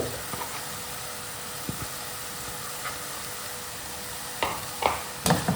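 Onions, tomatoes and mint sautéing in hot oil and ghee in a pan, a steady sizzle, with a few short clinks of stirring near the end.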